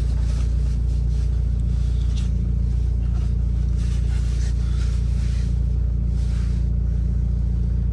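Toyota 1KZ-TE 3.0-litre four-cylinder turbo-diesel idling steadily, heard from inside the cab, just after a cold start while the exhaust is still cold.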